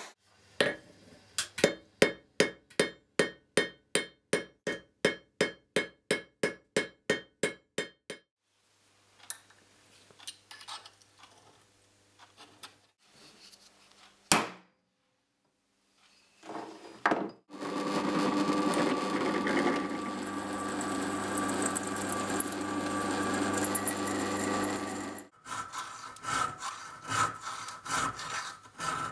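Hand work on a small steel bar: a run of about sixteen evenly spaced hammer blows, roughly two a second, then a single sharp blow on a centre punch midway. A long stretch of steady rasping follows, and near the end back-and-forth strokes of a file working a slot through the bar.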